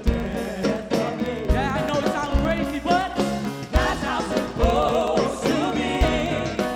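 Live gospel band music: a wordless or melismatic sung vocal line over bass, keys and a drum kit with a steady beat.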